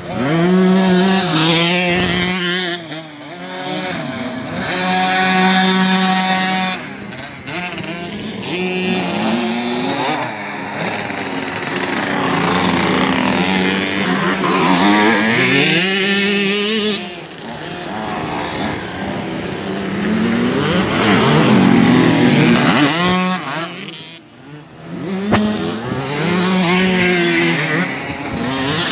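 Small kids' dirt bike engine revving up and easing off over and over as the bike climbs and crests a dirt jump mound, its buzzing pitch rising with each burst of throttle and falling away between them.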